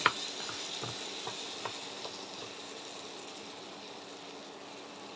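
Mashed olives sizzling in hot mustard oil in a nonstick wok, with a handful of light taps and scrapes from a wooden spatula stirring in the first two seconds, then a steady soft sizzle that fades a little.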